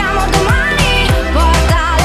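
Background pop music: a sung vocal over a steady beat with deep kick drums.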